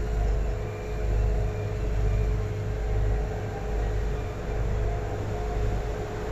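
Cruise boat under way on a river: a steady low engine rumble with a faint even hum.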